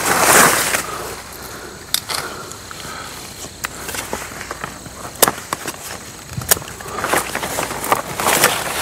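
Catalpa leaves and branches rustling as they are handled, with a few sharp clicks of hand pruning shears snipping off the fruit pods, spaced a second or more apart.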